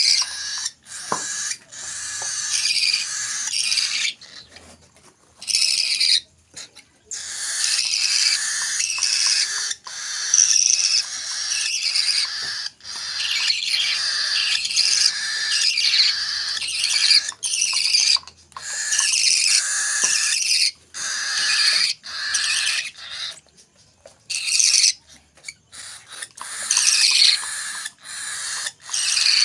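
Hand-fed baby cockatiel and parakeet chicks giving harsh, high food-begging calls in quick repeated bursts, with brief pauses between runs.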